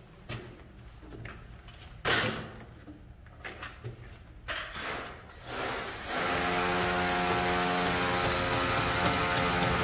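Scattered knocks and handling sounds. About six seconds in, a cordless drill starts and runs steadily at an even pitch as the hybrid solar inverter is fixed to the wall.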